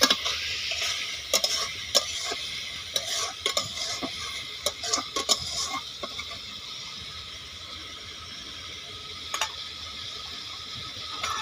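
A utensil scraping and clinking in a metal kadai as a spiced onion-and-potato masala is stirred, over a steady sizzle. The masala is being fried down (kosa) with small splashes of water. The stirring stops about six seconds in, leaving mostly the sizzle.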